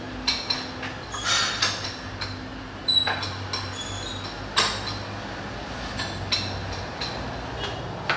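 Irregular metallic clinks and knocks from a pec deck fly machine's metal arms and frame being handled and set in position, one with a short ring about three seconds in.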